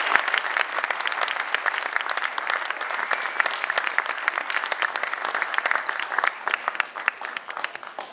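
Audience applauding a stage performance, the clapping gradually dying away near the end.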